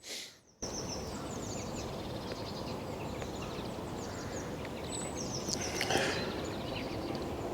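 Outdoor lakeside ambience: a steady wind hiss with small birds chirping and twittering throughout. It is briefly near silent for the first half second, as if cut in.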